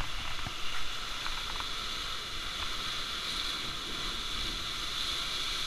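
Sea surf washing against shore rocks: a steady rushing hiss.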